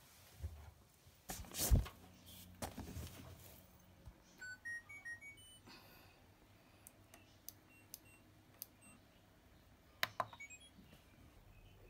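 LG front-loading washing machine being set going: a loud knock about a second and a half in as the door shuts, then a short run of electronic beeps stepping upward from the control panel, small clicks as the program dial is turned, and a sharp click with a beep near the end as the start button is pressed.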